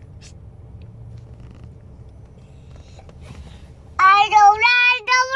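A toddler's high-pitched voice in held, sing-song notes, starting about four seconds in. Before it, only the faint low rumble inside a vehicle's cabin.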